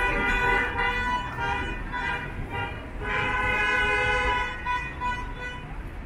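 Car horns from passing traffic honking in long, steady blasts, one running into the first second and a half and another from about three seconds in to nearly five. The drivers are sounding them in support of the roadside protest.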